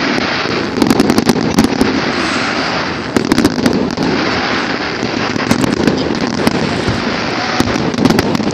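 Aerial fireworks show going off in quick succession: a steady din of bangs and crackle, with thicker clusters of sharp reports about a second in, around three seconds in, and near the end.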